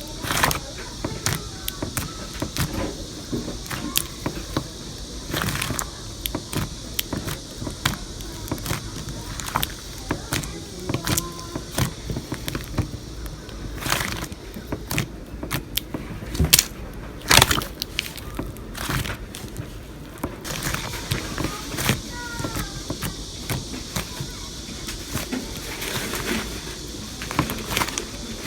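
Hands squeezing and kneading slime, giving irregular clicks and pops.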